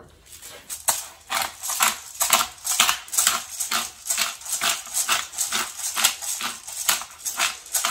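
Pepper mill grinding black peppercorns: a regular scraping crunch, about two to three twists a second, starting about a second in.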